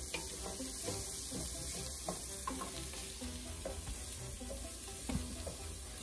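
Rice, diced onion and bell pepper sizzling steadily in hot oil in a stainless steel saucepan while a spoon stirs them, with light scrapes and ticks of the spoon against the pan. The rice is being toasted in the oil until it browns.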